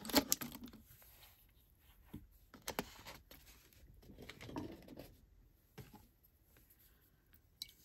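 Faint handling sounds at a desk: a few light clicks and taps, the sharpest just after the start and two or three more a couple of seconds in, with soft rustling between them.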